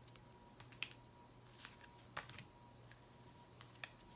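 Faint light clicks and rustles of oracle cards being handled and sorted by hand, scattered over near silence.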